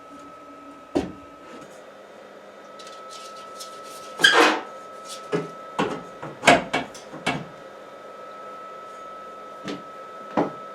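Irregular knocks and clunks of objects being handled and set down, about nine in all, the loudest a longer clatter about four seconds in, over a faint steady hum.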